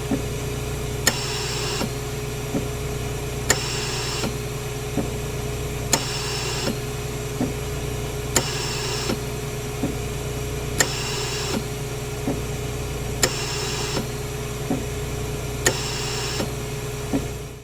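Hospital ventilator running over a steady low hum. About every two and a half seconds a valve clicks and a short hiss of air follows as a breath is delivered, with a softer click in between.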